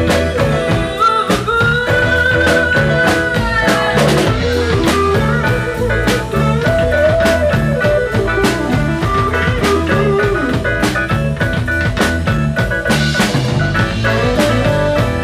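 Live rock band playing an instrumental passage: electric guitar over a steady drum-kit beat, with bent, held guitar notes.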